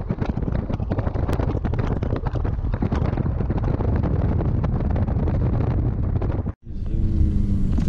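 Wind buffeting the microphone of a camera held at the window of a moving vehicle, a loud, crackling rumble. About six and a half seconds in it cuts off for a moment and gives way to a steadier rumble with a faint low hum.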